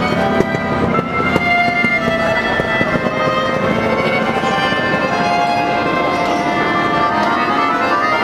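Orchestral music with violins, the show's soundtrack played over loudspeakers, with held notes and a melody throughout.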